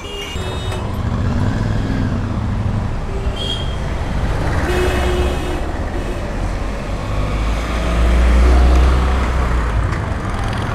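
Street traffic noise: motor vehicles running past close by, swelling to its loudest about eight seconds in.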